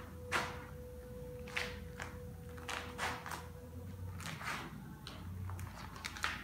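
Hand-laminating a surfboard with resin: a series of short, soft swishes and scuffs, irregularly spaced about half a second to a second apart, from squeegee strokes over the wet resin and the glasser's steps around the board.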